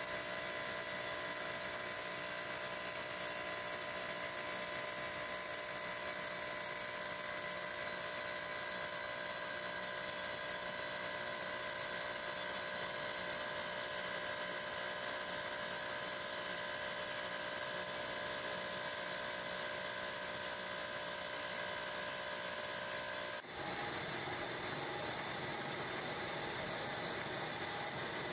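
Gold ore processing machinery running steadily, with electric motors, conveyor and vibrating ore feeder giving a continuous high-pitched whine. About 23 seconds in, the sound switches abruptly to a rougher, noisier machine run.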